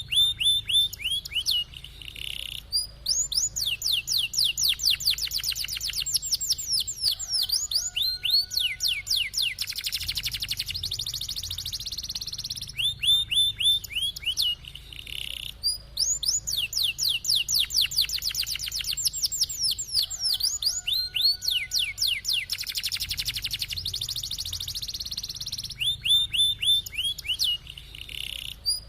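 Domestic canary singing a long song of fast rolling trills, sweeping between high and lower notes with short pauses. The same passage repeats about every thirteen seconds, as in a looped training recording.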